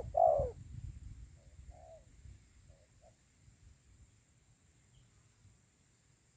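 Spotted dove (tekukur) cooing: a loud coo right at the start, then a few softer coo notes that stop about three seconds in.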